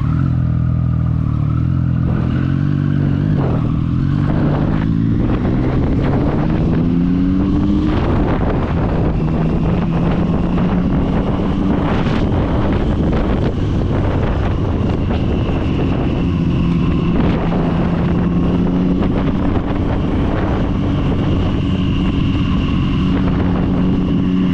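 Motorcycle engine pulling away, its pitch rising in steps through the gears for the first eight seconds or so, then running steady at cruising speed, with wind rushing over the microphone.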